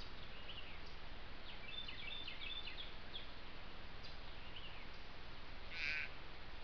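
Wild birds calling: scattered short chirps, a quick run of notes about two seconds in, and one louder call near the end, over a steady background hiss.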